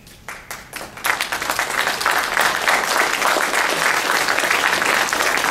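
Audience applauding: a few scattered claps that build within about a second into steady, full applause.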